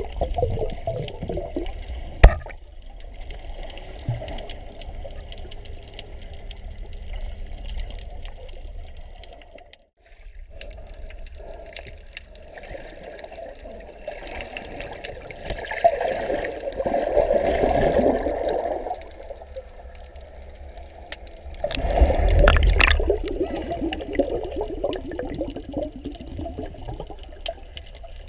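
Muffled water noise heard from below the surface while snorkeling: water sloshing and gurgling, swelling louder twice, around the middle and about three quarters of the way through. A single sharp knock comes about two seconds in.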